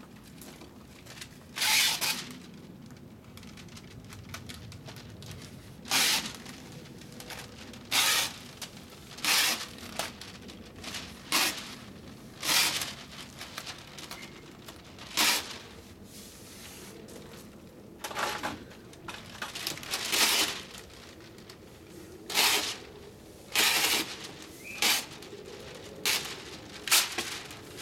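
Masking paper and tape being handled over a shutter: repeated short crinkling and tearing sounds, one every second or two, as the paper is unrolled, pressed flat and taped down.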